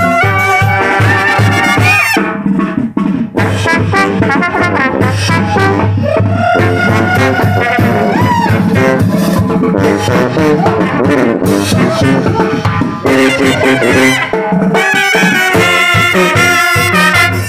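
Mexican banda brass band playing: brass instruments over a sousaphone bass line.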